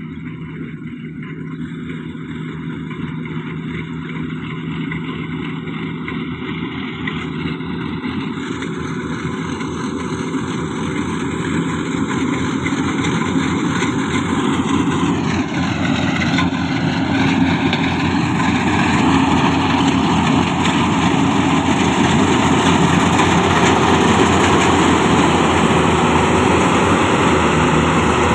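Yanmar YH700 full-feed combine harvester running with a steady mechanical hum, growing steadily louder as it comes closer.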